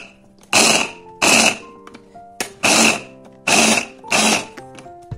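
Electric mini chopper with a hand-blender chopping bowl run in five short pulses of under half a second each, chopping red onions and garlic finely.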